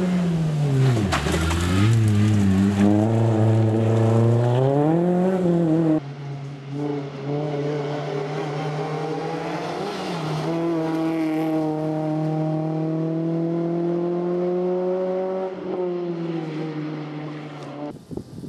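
Renault Clio rally car's engine revving hard, its pitch dipping on a lift or gearshift about a second in and climbing again. After an abrupt cut, it holds high revs on a steady, slowly rising note and eases off near the end.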